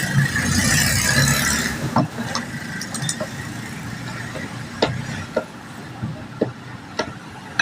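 Electric drill motor running with a steady whine, stopping about two seconds in; then scattered light clicks and knocks of parts and tools being handled.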